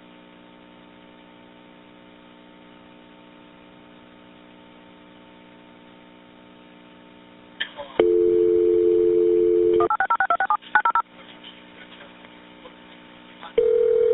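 Recorded telephone line: steady faint line hum, then a click and about two seconds of dial tone, followed by a quick run of touch-tone keypad beeps as a number is dialed. A short steady tone comes in near the end.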